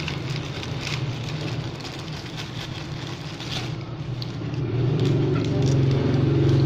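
Clear plastic food bag crinkling in someone's hands, over a steady low machine hum that grows louder about four and a half seconds in.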